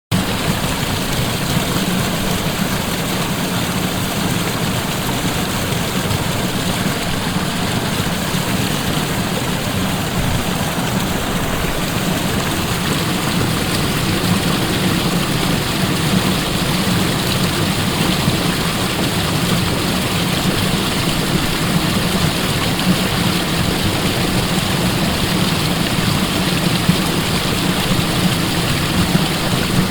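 Waterfall: a loud, steady rush of falling water with no change.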